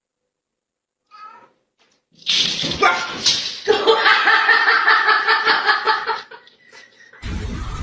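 A pet animal crying out: one short cry, then a long, loud cry of about four seconds with a wavering, pulsing tone.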